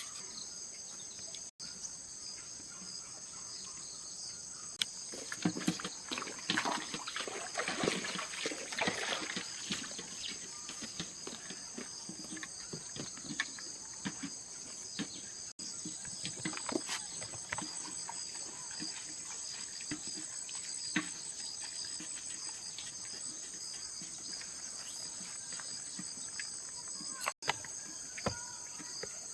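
Steady high-pitched chirring of crickets, with scattered light clicks and knocks, thickest for a few seconds about a quarter of the way in and again briefly near the middle and the end.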